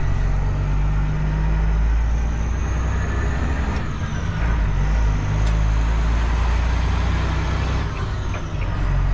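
Diesel engine of a classic semi truck running steadily under way, heard from inside the cab as a loud, constant low drone, with a few faint clicks.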